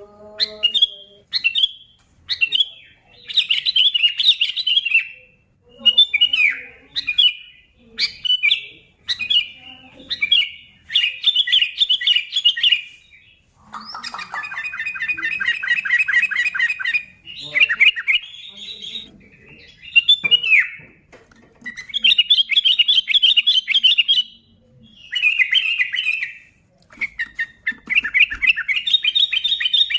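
Sooty-headed bulbul singing: a busy string of short chattering, whistled phrases, one after another with brief pauses. About halfway through comes a longer, faster run of quickly repeated notes.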